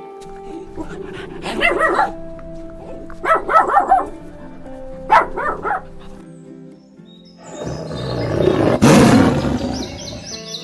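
Animal calls over steady background music: three short bouts of barking, then a long, loud roar beginning about seven and a half seconds in.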